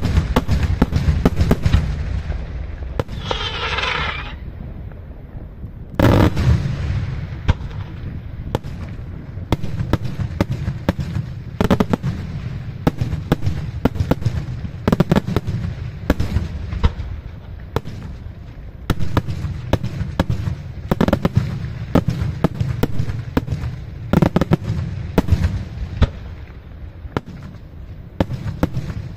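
Daytime aerial fireworks (salutes) bursting in quick succession: a dense run of sharp bangs and crackling reports, with a loud cluster about six seconds in and heavy repeated reports after it. A brief high-pitched wavering whine sounds about three seconds in.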